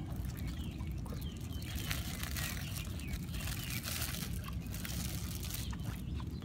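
Thin plastic bag crinkling, with faint scattered clicks and rustles as food is packed into it, over a steady low rumble.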